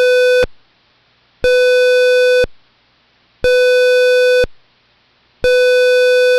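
Demodulated tone of an AM radio beacon from an RP2040 PWM pin, its carrier keyed on and off at 1 kHz. It plays as a buzzy, square-wave-like beep, about a second on and a second off, four times, with faint receiver hiss between the beeps.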